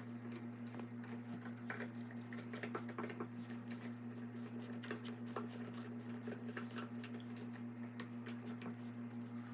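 Scattered light clicks and taps of faucet parts being handled and fitted back together by hand, over a steady low hum.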